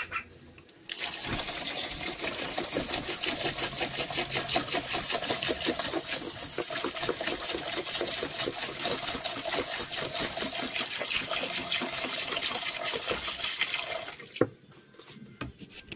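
White vinegar poured steadily from a plastic jug into a plastic tub, splashing over a rusty crankshaft, filling the tub to soak off the rust. The pour stops near the end, followed by a single short knock.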